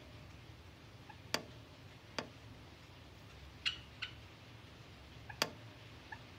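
White Java sparrow making sharp beak clicks, three of them spread over a few seconds, with two short chirps close together in the middle.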